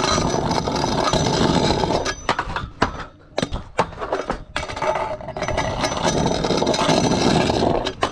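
Hard wooden scooter wheels, cut from hardwood flooring with no urethane, rolling over concrete with a loud, rough rumble. Partway through, the rumble gives way to a few sharp knocks and clacks, then resumes, with another sharp knock near the end.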